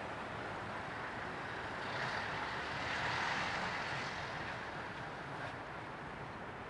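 Steady hum of city traffic, swelling as a vehicle passes about two to four seconds in, then easing off.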